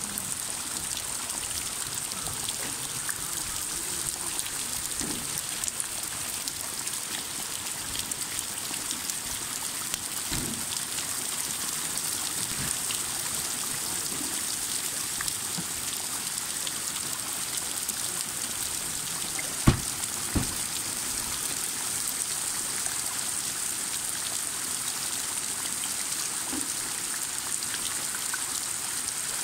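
Heavy rain falling steadily onto the open water of a wetland lake, an even hiss of countless drops striking the surface. About two-thirds of the way in, two sharp knocks come less than a second apart, louder than the rain.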